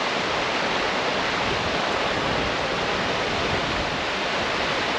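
Steady rush of a waterfall and the creek tumbling over rocks below it.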